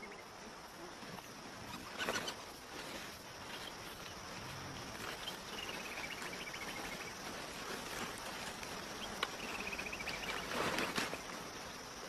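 Faint outdoor ambience of insects chirring steadily, with two short descending trills partway through and brief rustles about two seconds in and near the end.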